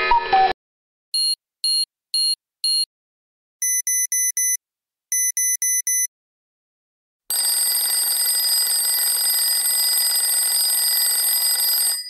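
Alarm clock sounds one after another: four short electronic beeps about half a second apart, then two quick runs of four rapid beeps. About seven seconds in, a bell alarm starts ringing continuously.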